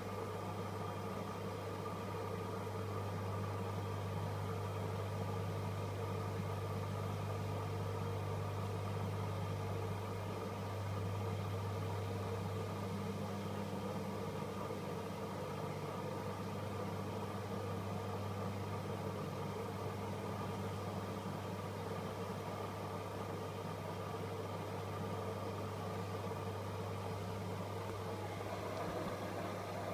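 AEG Öko-Lavamat 85739 washing machine running with a steady motor hum.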